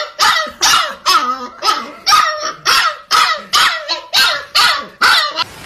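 Husky puppy barking in a rapid, even series of high yaps, about two a second, which stop shortly before the end.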